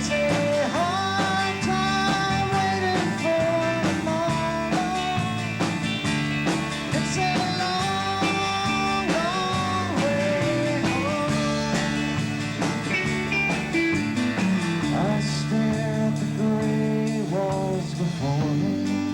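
Live rock band playing a loud, steady groove of guitars, bass and drums, with a melody line bending between notes above it.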